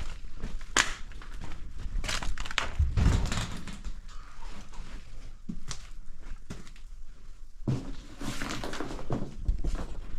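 Footsteps with scattered knocks and thuds, irregular and uneven, in a small room.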